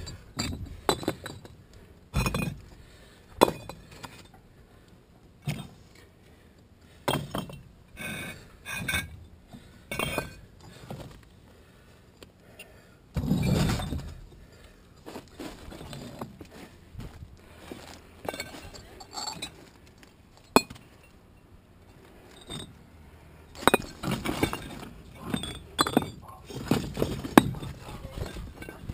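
Concrete blocks and pavers being lifted and set down, knocking and clinking against each other at irregular intervals. There is one longer, noisier stretch about thirteen seconds in, and the knocks come faster near the end.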